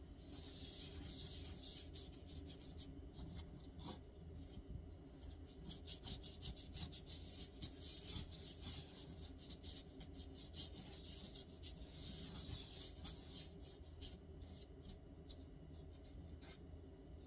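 Small paintbrush rubbing and scrubbing red paint onto paper, a soft scratchy swishing made of many short strokes. The strokes come densest near the start and again about twelve seconds in.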